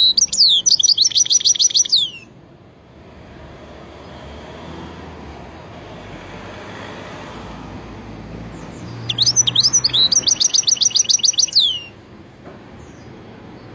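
Caged goldfinch hybrid singing in two bursts of song. Each burst is a few downward-sweeping notes, then a fast trill of repeated high notes ending in a falling slur. The first burst ends about two seconds in, and the second runs from about nine to twelve seconds.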